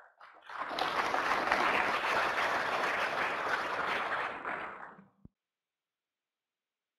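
Audience applauding at the end of a lecture. The clapping builds within the first second, holds steady, and dies away about five seconds in.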